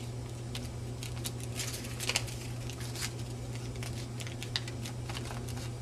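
Square origami paper being folded and creased by hand: irregular light crinkles and small clicks of paper, over a steady low hum.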